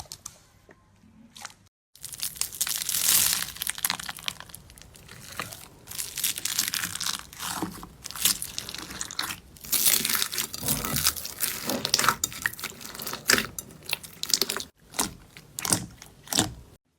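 Slime worked by hand close to the microphone: dense crackling, crunching and tearing sounds in quick, irregular strokes. The sound breaks off briefly twice, about two seconds in and near the end.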